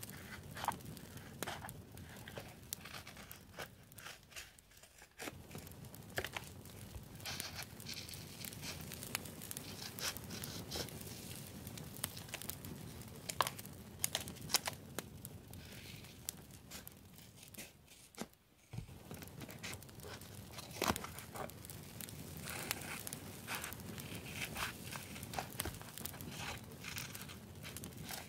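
Small scissors snipping through sticker sheets, with the paper rustling and crinkling as the sheets are handled: many short, irregular snips and clicks, pausing briefly a couple of times.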